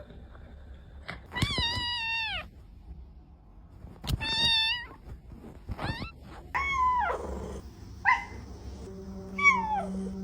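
Domestic cat meowing repeatedly, about six meows, some long and drawn out with the pitch dropping at the end, others short.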